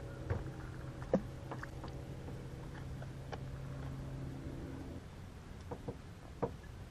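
A small electric motor on a bass boat hums steadily and cuts off about two-thirds of the way through. Sharp clicks and knocks from gear being handled on the boat come and go, the loudest about a second in.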